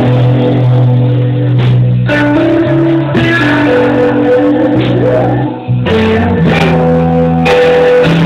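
Live rock band playing an instrumental passage with no singing: electric guitar, bass guitar and drums. It is loud and steady, and one note slides upward about five seconds in.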